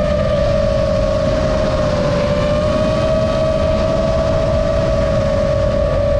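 FPV drone's electric motors and propellers whining steadily at cruising throttle over a low rushing noise. The pitch sags a little about two seconds in, then comes back up.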